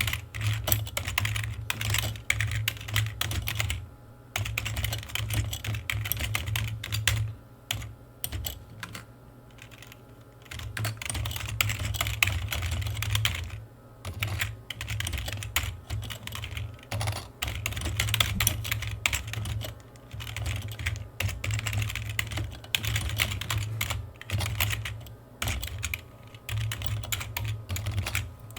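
Typing on a computer keyboard: fast runs of key clicks, broken by short pauses every few seconds.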